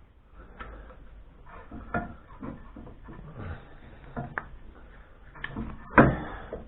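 Irregular clicks and knocks of metal parts and hand tools being handled while a polyurethane bush is worked onto a steering rack mounting, with the loudest clunk about six seconds in.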